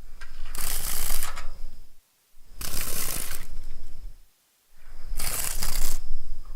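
Dragonfly wings buzzing in three bursts of about two seconds each, with short silent gaps between them.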